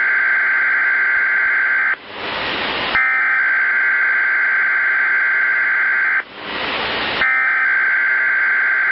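Weatheradio SAME alert header: a harsh digital data burst of warbling tones, heard three times, each about three seconds long with about a second of radio static between them. It marks the start of the weekly test alert.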